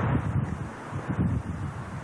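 Wind buffeting the camcorder microphone in irregular low rumbling gusts.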